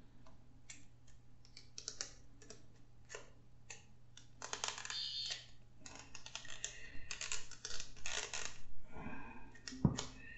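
Irregular small plastic clicks and rattles from handling a toy sonic screwdriver's pulled-apart body and its button cell batteries, with one dull knock near the end.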